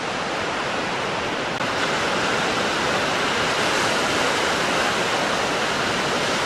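Surf on a sandy beach: a steady rushing wash of breaking waves that gets a little louder about a second and a half in.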